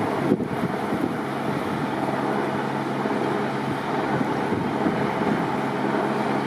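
Strong wind buffeting the microphone in a blizzard, with a steady low engine hum of idling vehicles underneath and a brief knock about a third of a second in.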